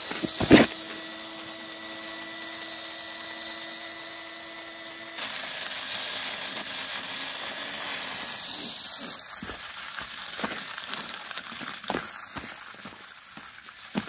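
Small DC motors of a homemade remote-control toy tractor whining steadily. About five seconds in the whine drops lower and fades, giving way to a rougher noise with a few sharp clicks as the tractor runs on the dirt.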